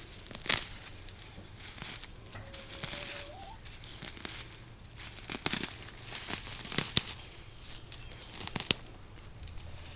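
Dry garden plants and ground litter rustling and crackling as they are handled, with several sharp snaps spread irregularly through it.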